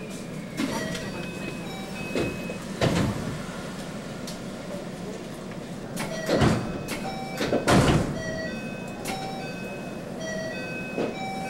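A short melody of clipped electronic chime notes plays twice, heard from inside a train standing at a station platform. Steady low carriage noise runs underneath, with a few loud knocks near the middle, the loudest about 8 seconds in.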